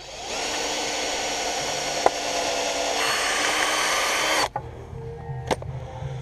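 Electric drill running steadily, boring a hole through a wooden bench slat, for about four seconds, then cutting off suddenly. A single sharp knock follows shortly after.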